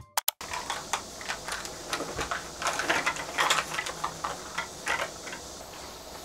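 Two sharp clicks right at the start, then handling noise from a canvas tote bag being picked up and shouldered: rustling with scattered short clicks and knocks, busiest around the middle.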